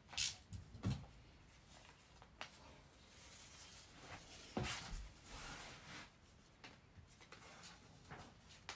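Shoji rice paper being handled: a few sharp clicks and knocks, then soft rustling and crinkling as a long cut-off strip of the paper is lifted and pulled away.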